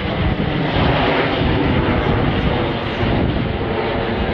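Red Arrows formation of BAE Hawk T1 jets flying overhead, their Rolls-Royce Turbomeca Adour turbofan engines giving a steady, rushing jet noise.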